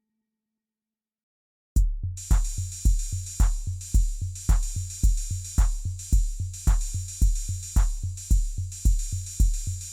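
Silence for about two seconds, then an R&B drum-machine beat starts abruptly: a deep kick drum about twice a second under a bright, steady hi-hat shimmer, with no vocals yet.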